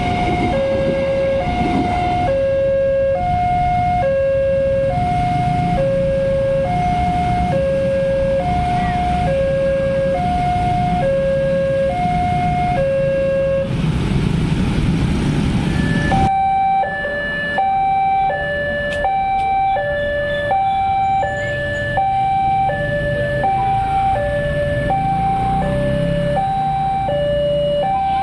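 Railway level-crossing warning alarm from the crossing's loudspeaker: two electronic tones alternating high–low, about one tone a second, over the rumble of a passing train and then motorbike traffic. About sixteen seconds in, the sound cuts to another crossing's alarm with the same two-tone pattern, slightly higher and alternating faster.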